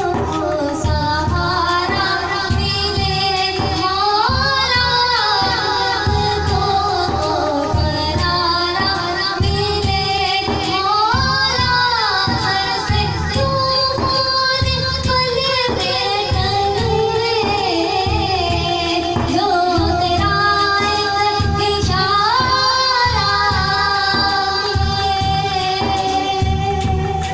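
A woman singing an Urdu devotional kalam in long, gliding held notes, accompanied by a steady low beat on a hand-played frame drum.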